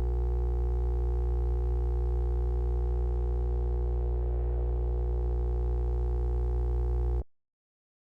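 A steady low electronic hum made of several held tones, unchanging until it cuts off abruptly about seven seconds in.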